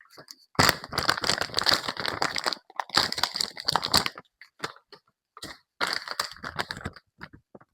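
Plastic bag, likely a small bag of laundry detergent, being handled and crinkling in two long spells, followed by a few short rustles and clicks.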